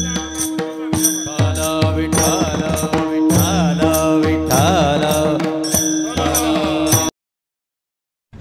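Kirtan accompaniment: hand drum strokes whose low tone drops in pitch, bright clashes of small hand cymbals, a held drone note and a wavering melody over it, in a steady rhythm. The music cuts off abruptly about seven seconds in, followed by about a second of silence.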